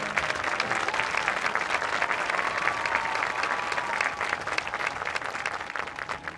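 Stadium crowd applauding with some cheers as a marching band's held chord breaks off at the very start; the clapping eases near the end.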